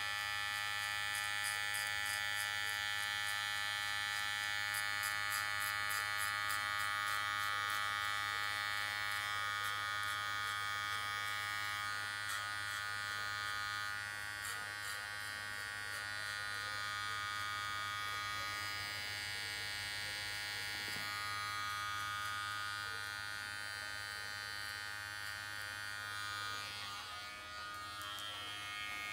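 Gold cordless hair clipper running with a steady buzz as it cuts a child's hair short; its tone changes about two seconds before the end.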